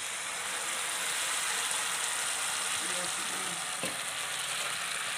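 Rice starch water poured into hot oil in a wok, sizzling and frothing steadily, with a faint click a little under four seconds in.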